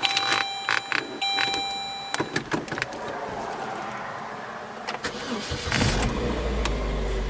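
Saturn Ion dashboard chime sounding in on-off pulses, then a few clicks. About five and a half seconds in the engine cranks briefly, catches and settles into a steady idle: a clean start.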